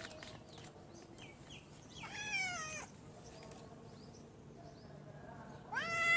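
Cat meowing twice: a short meow about two seconds in, then a louder, longer meow near the end.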